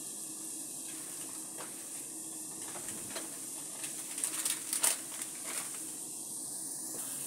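Water heating to a boil in an aluminium pot on a stove, a steady hiss with a short run of small pops and ticks about halfway through.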